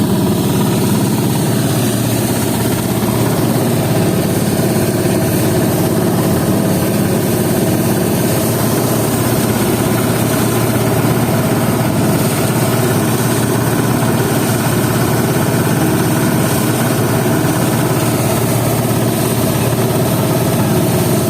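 Engine-driven rice threshing machine running steadily, its motor and threshing drum humming at a constant speed.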